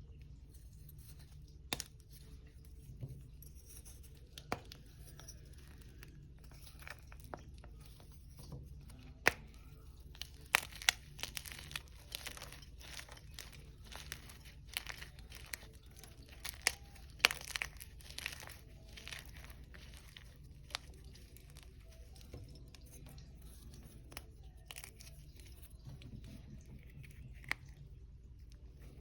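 Hard, crunchy gym chalk being crushed, giving irregular sharp crunches and crackles, thickest in the middle stretch.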